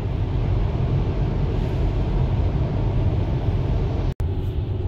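Steady low road and tyre noise inside an electric Tesla's cabin while driving through a motorway tunnel. The sound cuts out completely for an instant about four seconds in.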